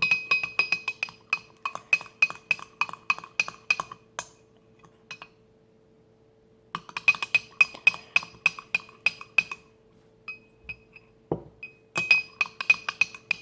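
A utensil stirring dish soap and salt in a glass container, clinking rapidly against its sides at about six strikes a second with a bright ringing tone. The stirring comes in three spells, stopping for a couple of seconds about four seconds in and again near the end before resuming. A faint steady hum sits underneath.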